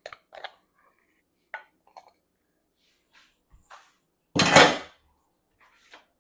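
Kitchen clatter of dishes and utensils: a series of light clinks and taps, then one loud clattering crash about four and a half seconds in.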